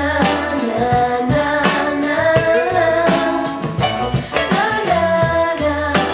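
Pop music with a singing voice.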